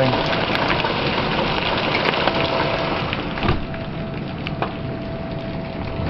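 Steady rain falling and splattering. About halfway through, the faint, steady tone of a distant tornado siren comes up through the rain.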